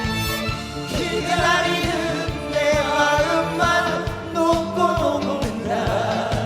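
Trot song with band accompaniment and a steady drumbeat, a singing voice with wide vibrato carrying the melody.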